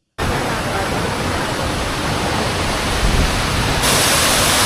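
Rushing water of a waterfall: a steady, even hiss that grows louder and brighter near the end.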